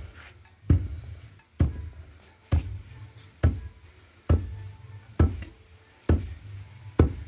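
A long wooden pestle pounding grain in a mortar: steady, dull thuds about one a second, eight strikes in all.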